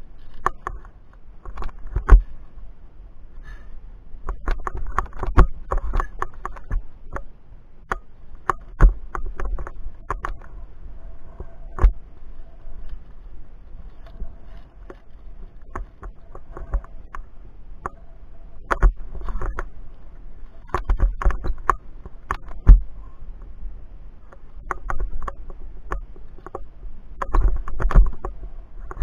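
Irregular metallic clinks and knocks of via ferrata gear: lanyard carabiners sliding and clipping on the steel safety cable and the fixed chain, with handling bumps and a low rumble underneath.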